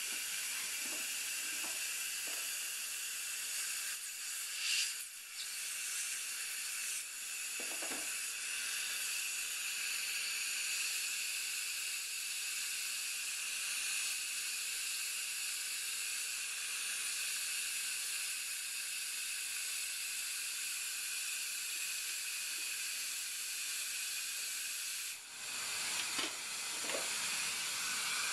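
Dental saliva ejector suction hissing steadily in the patient's mouth. Near the end it dips briefly and turns uneven.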